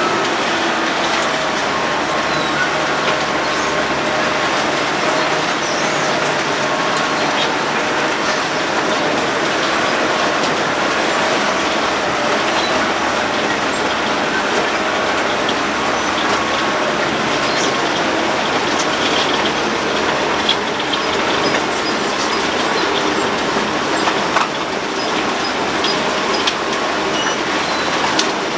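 Road planer (cold milling machine) running steadily under load, its cutting drum grinding up the road surface in a continuous loud noise.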